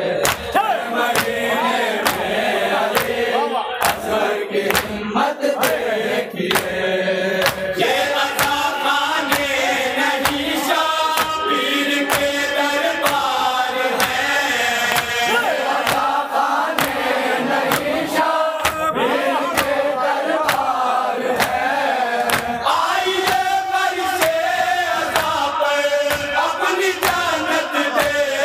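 A group of men chanting a Shia salam (noha) in unison, with the crowd's open-palm chest-beating (matam) keeping a steady beat of about two strikes a second.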